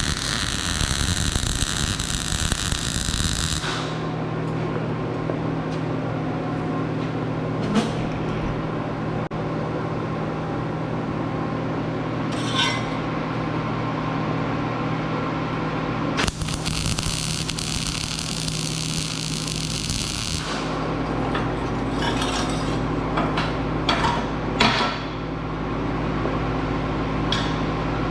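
Two bursts of hissing metalwork of a few seconds each: one at the start, one about midway. Under them runs a steady machine hum, and scattered clinks of metal pieces are handled in between.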